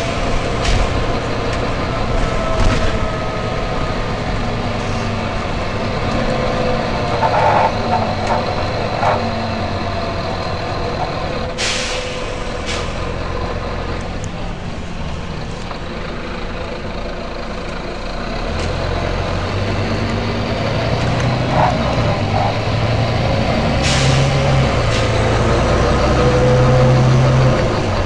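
Volvo B9TL bus with its six-cylinder diesel running. Sharp air hisses come from its brake and air system, the loudest twice, about 12 and 24 seconds in, with shorter puffs between. The engine grows louder in the last third as the bus pulls away.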